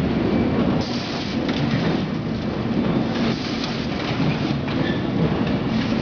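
Net-bag filling and packaging machine running: a steady mechanical clatter and rush of product being dosed, with short bursts of hiss a few times.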